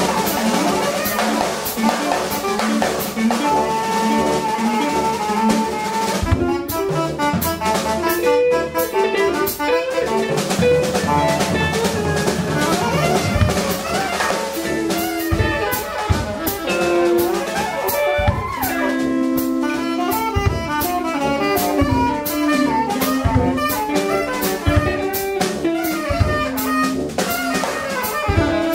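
A small band playing live: tenor saxophone and tuba carry held melodic lines over a drum kit with cymbals, with an electric guitar in the group.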